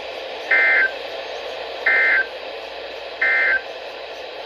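Emergency Alert System end-of-message data bursts over NOAA Weather Radio: three short, identical digital warbles about a second and a half apart, sent after the spoken warning to mark the end of the alert, over steady radio hiss.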